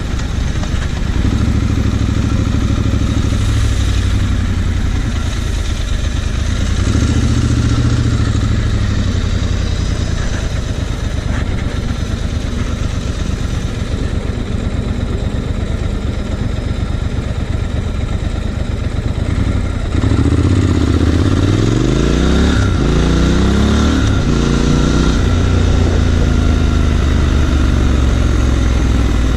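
Triumph Scrambler 1200XE's 1200 cc parallel-twin engine running steadily under way. About two-thirds of the way through it gets louder and accelerates, its pitch climbing several times in quick succession as it goes up through the gears, then it settles again.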